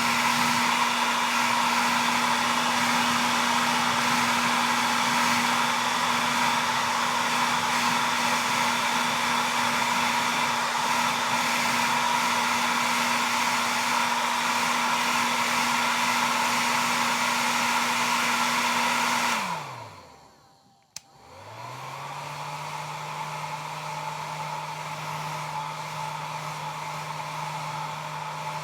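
Hair dryer running on its high setting, a steady blowing noise with a motor hum. About 19 seconds in it is switched down and winds down to near silence. After a click it spins back up and runs on the low setting, quieter and with a lower hum.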